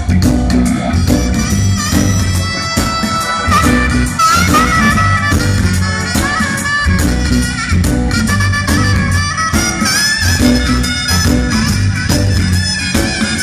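Live reggae band playing: a saxophone solo over heavy bass, drums and electric guitar, the sax line coming in about four seconds in.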